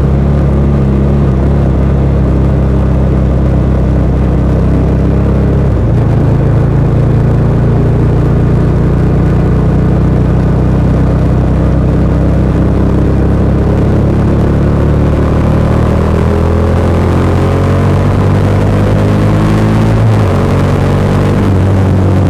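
Bajaj Dominar 400 UG's single-cylinder engine running through its stock exhaust under way, with a gear change about six seconds in. Near the end the engine climbs in revs, then shifts again briefly about twenty seconds in.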